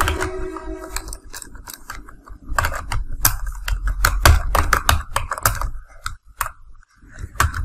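Typing on a computer keyboard: irregular runs of quick key clicks, with a brief pause near the end.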